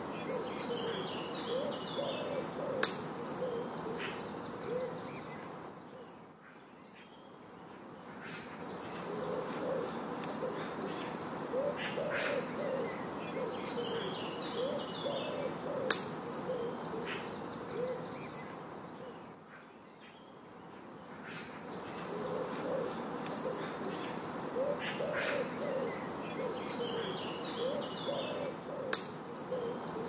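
A woodland bird soundtrack: low bird calls repeated in quick runs, with high chirps of small birds over them. A sharp click comes three times, about thirteen seconds apart, and the whole sound fades down and swells back twice.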